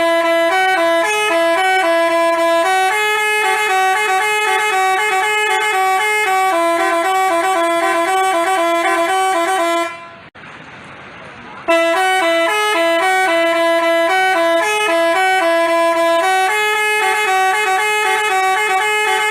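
Telolet-style Basuri multi-tone musical horn playing a tune, its notes switching in a repeating pattern. About ten seconds in it stops for under two seconds, leaving a faint hiss, then the tune starts again.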